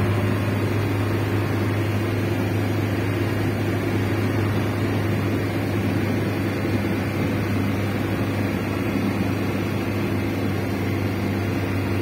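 Steady engine drone and road noise inside the cab of a vehicle moving along a highway, an even low hum that holds without change.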